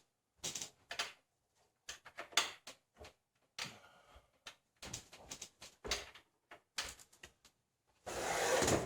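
Irregular clicks and knocks of a sliding compound miter saw's metal and plastic parts being moved and checked by hand. Near the end, a steady sliding rush as the saw head is pushed along its glide rails.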